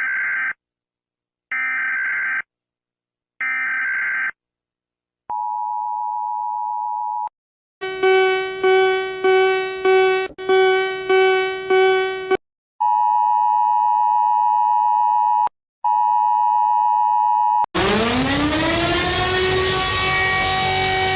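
Emergency Alert System alarm audio: three short warbling data-burst header tones about a second apart, then a steady alert tone, a pulsing buzzy tone about twice a second, and a long steady tone broken once. Near the end a tone sweeps upward and settles into a loud held chord.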